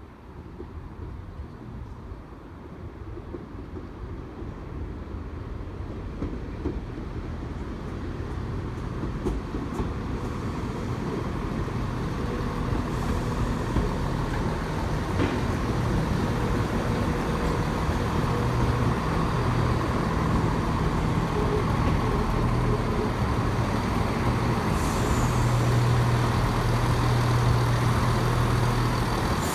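A diesel train approaching slowly. Its engine hum and running noise grow steadily louder over about twenty-five seconds and are loudest near the end.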